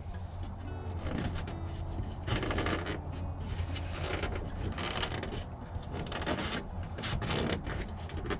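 Irregular scraping and rubbing handling noises over a steady low hum.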